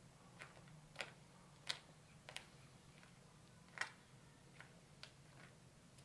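Faint footsteps on a gritty asphalt driveway: short, sharp clicks at about walking pace, some irregular, over near silence.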